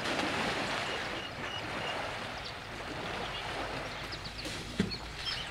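Water sloshing and splashing as a herd of African bush elephants wade and bathe in a waterhole, with a few faint high chirps and a single sharp knock about five seconds in.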